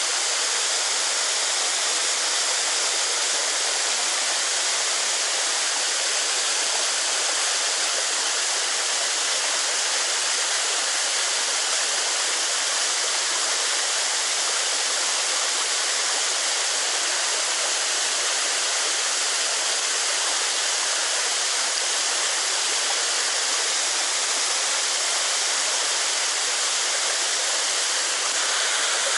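Steady rushing water of a mountain headwater stream, an even, unbroken roar of fast-flowing water.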